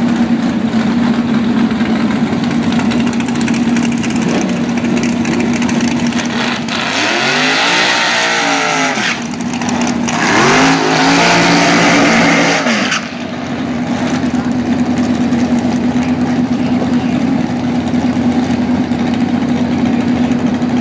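Dragster engines running loudly at a steady idle, broken by two bursts of hard revving, one about seven seconds in and a louder one about ten seconds in that cuts off suddenly, as the cars do their burnouts.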